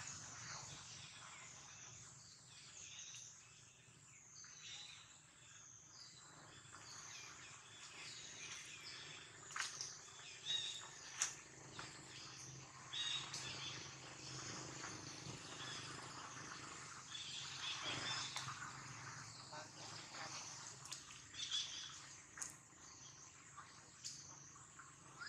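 Forest ambience: a steady hiss with scattered short, high-pitched chirps and calls, most of them through the middle stretch, and a few brief clicks.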